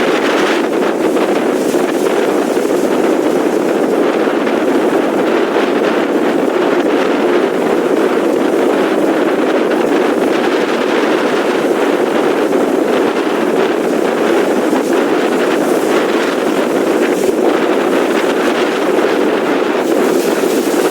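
Steady loud noise of strong hurricane wind and surf on the beach, with wind buffeting the microphone.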